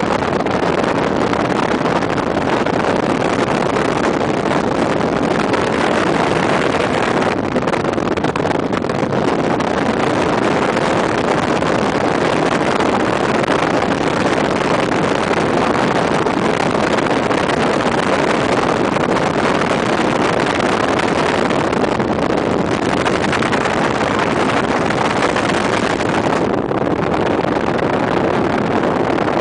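Loud, steady rushing of wind and road noise from a vehicle driving at highway speed, with wind buffeting the microphone.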